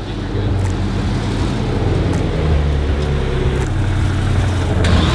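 Supercar engine idling with a low, steady hum. A rushing hiss joins in near the end.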